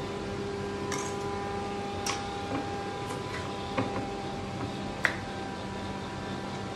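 Kitchen knife cutting a carrot on a wooden chopping board: a handful of irregular knocks and clicks, the sharpest about five seconds in, over a steady background hum.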